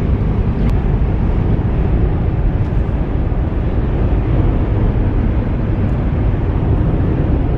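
Steady road and engine noise heard inside a moving vehicle's cabin, a low rumble.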